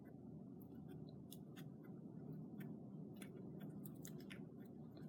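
Faint, irregular small clicks and light rustling from hands working over a bare-rooted orchid's roots.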